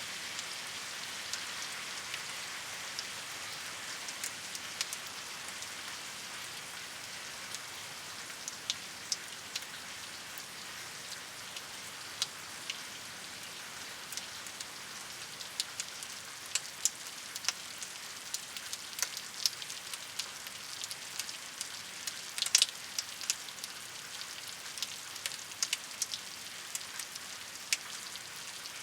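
Steady rain falling, an even hiss with many sharp drip and drop ticks scattered through it, growing more frequent in the second half.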